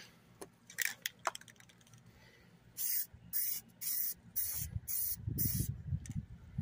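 Aerosol can of camouflage spray paint hissing in short bursts, about two a second, starting about three seconds in, as paint is sprayed onto the rifle in stripes.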